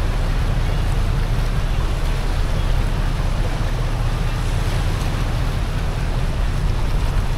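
Steady low rumble and rushing noise of a tug-barge passing through the ship canal, its engine sound blended with water wash and wind on the microphone.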